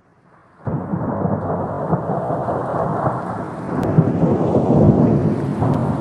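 Thunderstorm: thunder rumbling over steady rain, coming in suddenly about half a second in.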